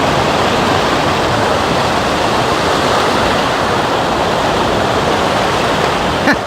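Creek water rushing close by in a steady, loud rush. A brief knock comes near the end.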